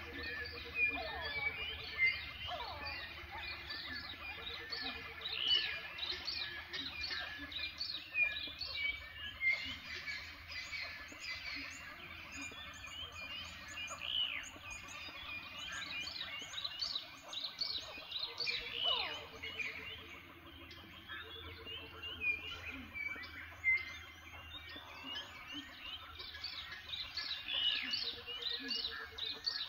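A dense chorus of many birds chirping and calling at once. Under it, a low pulsed trill repeats several times and a few long falling whistles sound, over a faint steady low hum.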